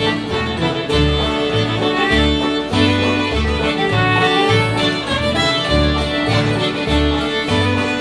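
Concertina and acoustic guitar playing an old-time dance tune: the concertina carries the reedy melody while the guitar keeps a steady rhythm of alternating bass notes and strums.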